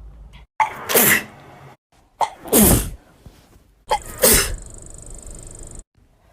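A woman sneezing three times in a row, about a second and a half apart. Each sneeze is a short catch followed by a loud, sharp burst.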